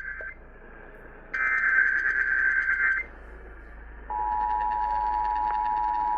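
Emergency Alert System tones received over AM radio: the tail of one SAME digital header burst, then a second screeching data burst of about a second and a half. About four seconds in, the steady two-tone EAS attention signal begins and holds.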